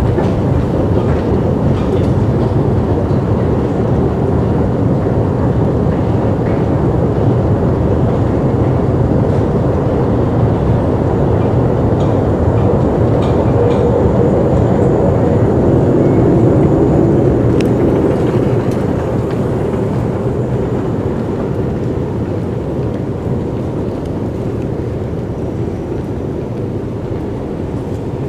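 Steady low mechanical rumble and hum of a long MRT station escalator in motion. It grows louder toward the top landing a little past halfway, then slowly fades.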